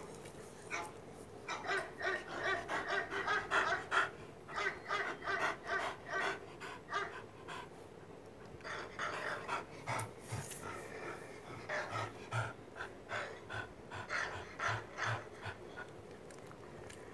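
A dog panting in quick, even breaths, with a short pause about halfway through.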